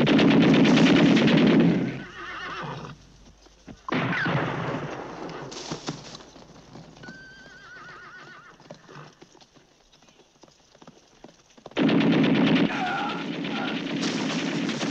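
Film soundtrack of a machine gun firing in long rapid bursts, cutting off about two seconds in and starting again near the end. In the quieter stretch between, horses whinny, and a whinny also carries over the gunfire when it resumes.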